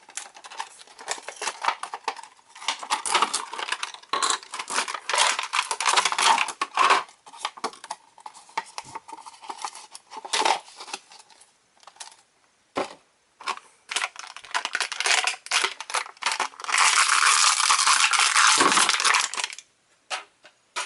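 A small cardboard toy box and its packaging being opened by hand: tape and cardboard tearing, paper and plastic crinkling, with irregular clicks and rustles. Near the end comes a longer, continuous rustle lasting about three seconds.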